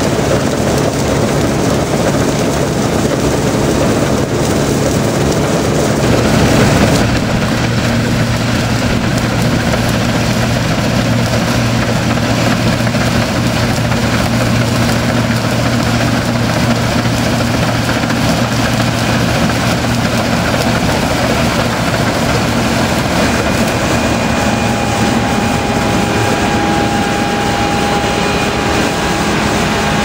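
New Holland TX65 Plus combine harvester running steadily while cutting barley: a constant engine drone mixed with the noise of its header and threshing machinery. About seven seconds in the sound shifts, and a steadier low engine hum comes through.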